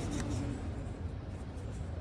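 Car engine running with a steady low rumble; a higher steady tone heard at first fades out about half a second in.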